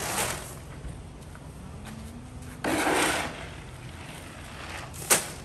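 A plastic shovel scooping loose grain feed off a concrete floor and tipping it into a plastic wheelbarrow. There is a brief rattling pour at the start, a loud half-second scrape about three seconds in, and a single sharp knock near the end.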